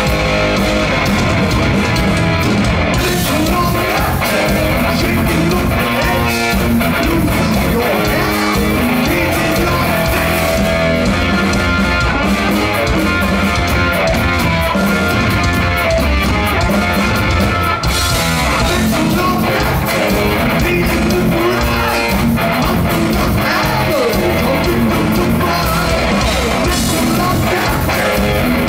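Heavy metal band playing live: distorted electric guitars, bass and drums with a sung vocal over them.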